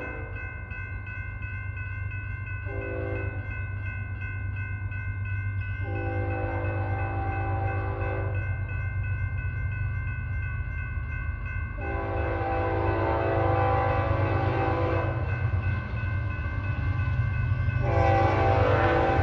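Horn of an approaching Union Pacific freight train's lead locomotive, sounding a series of blasts: one short and then three long ones. Under them the low rumble of the diesel locomotives grows louder as the train draws near.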